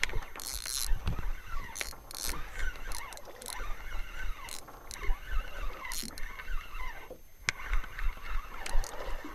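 Spinning reel being cranked to bring in a hooked fish, its gears whirring and squeaking, with knocks and low wind thumps on the microphone.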